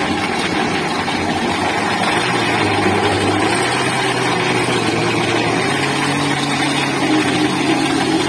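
Electric countertop blender motor running steadily, puréeing tomatoes, onion, garlic and herbs with water into a smooth liquid, with the motor's whir and the churning of the contents.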